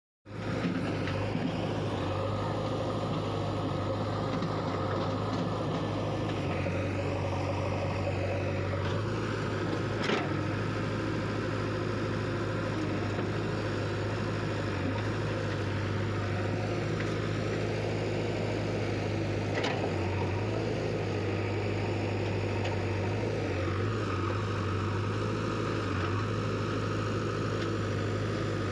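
A diesel engine running steadily at low revs, with a couple of faint knocks.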